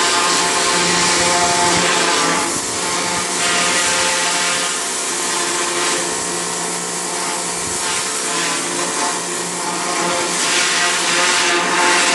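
A machine motor running steadily, a pitched hum under a loud, continuous hiss.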